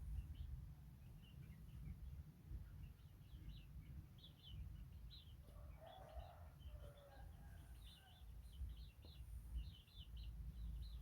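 Faint, scattered chirps of small birds, short high notes coming every fraction of a second, over a low rumble, with a brief lower call about six seconds in.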